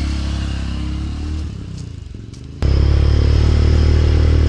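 Washing machine motor running in wash mode and driving the pulsator with a steady low hum. It winds down about a second and a half in, then starts again abruptly a second later, as the wash cycle stops and restarts. The machine is now turning in wash after its stripped-gear drive part was replaced.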